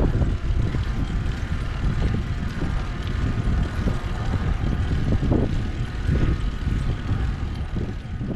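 Wind noise on the microphone of a bike-mounted camera while cycling, mixed with the rolling noise of the bicycle and the bicycle caravan it is towing over asphalt.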